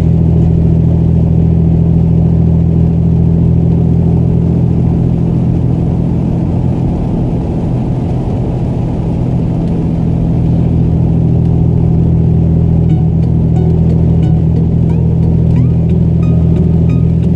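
Motor vehicle running with a steady low rumble, easing off slightly midway.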